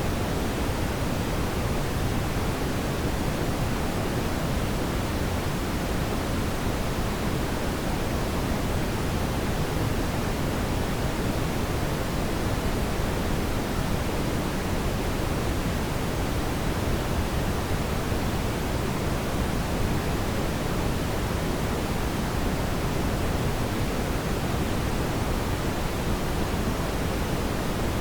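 Brown noise: a steady, deep, even hiss, heaviest in the low end, with no change throughout.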